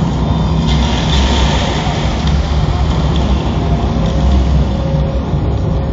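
Loud arena sound picked up by a phone: deep, pulsing bass from the arena's PA system under a dense wash of crowd noise, which swells about a second in.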